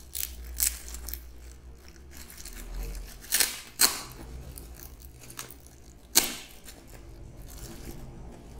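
Clear plastic wrapping around a new camera bag crinkling and rustling as it is handled, with several sharp crackles.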